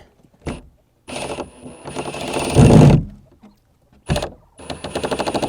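Power drill driving screws into a wooden block. It runs twice, with fast pulsing and a high whine. The first run grows louder and heavier as the screw bites into the wood.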